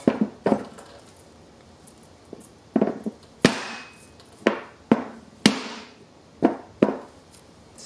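A string of about nine sharp knocks, irregularly spaced, some ringing briefly, as a Coda Evolution Lightning carbon fiber AR-15 handguard is forced down by hand onto the barrel nut of the upper receiver.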